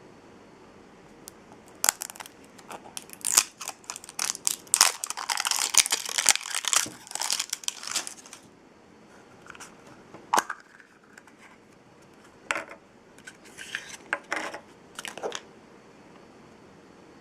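Blind-pack toy packaging being torn open and crinkled by hand: a dense run of tearing and crackling for about six seconds, then a few separate crinkles and clicks.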